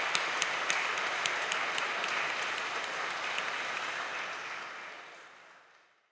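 Applause from a church congregation: many hands clapping in a dense patter, with a few sharper claps standing out. It fades away over the last two seconds.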